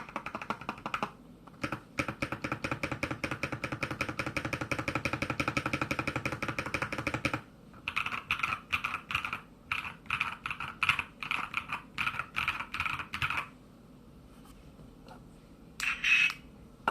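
Typing on an SK68 mechanical keyboard with a brass plate and lubed, filmed GP switches. A fast, dense run of keystrokes is followed by a pause, then a slower, rhythmic run of keystrokes. A brief louder sound comes near the end.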